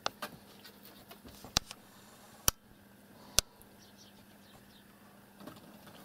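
Four loud, sharp clicks spaced about a second apart, with a few fainter ticks between them, over a faint steady low hum.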